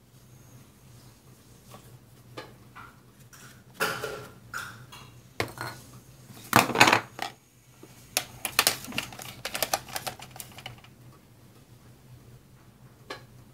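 Clear acrylic stamp block, rubber stamp and plastic ink pad case handled and set down on a wooden tabletop: scattered clicks and knocks, the loudest clatter about six to seven seconds in, then a quick run of light clicks for a couple of seconds.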